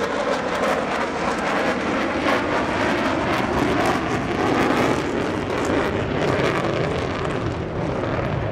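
Jet noise from a B-1B Lancer's four General Electric F101-GE-102 turbofans as the bomber flies past and away: a loud, steady rumble and rush.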